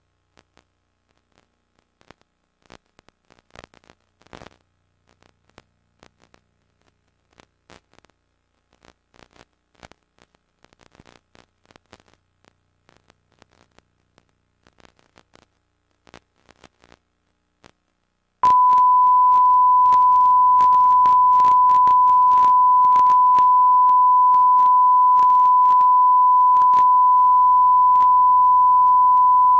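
Faint scattered clicks and crackles of a blank stretch of videotape. About eighteen seconds in, a loud, steady 1 kHz tone starts suddenly and holds, like a line-up test tone.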